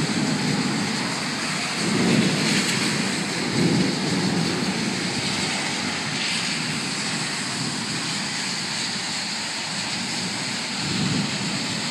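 Steady hiss of rain in a thunderstorm, with a few low swells about two seconds in, near four seconds and near eleven seconds.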